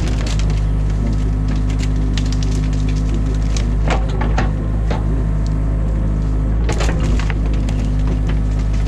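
Excavator engine running steadily under load, heard from inside the cab, while branches of a beaver dam crack and snap as the machine pulls them out. The loudest clusters of snapping come about four seconds in and again about seven seconds in.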